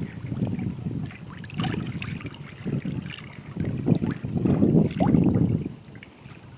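Wind buffeting the phone's microphone in uneven gusts, over water sloshing around a man wading chest-deep in a muddy estuary. The gusts are strongest a little past the middle, then ease near the end.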